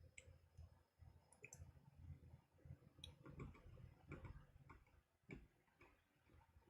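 Near silence with faint, irregular clicks of a computer mouse being clicked and scrolled.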